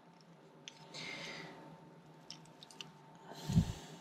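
Quiet handling sounds while digital calipers are set against a bike saddle's padding: a few faint small clicks, a soft breath about a second in, and a dull bump about three and a half seconds in, the loudest sound.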